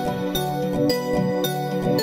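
Background music: a gentle instrumental tune with bright, bell-like notes.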